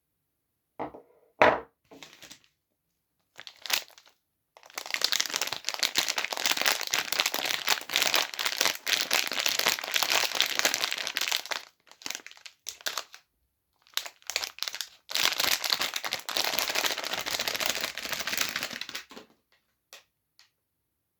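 Wrapping being crinkled and pulled off a bar of soap, in two long stretches of dense crackling, with a couple of sharp knocks shortly before.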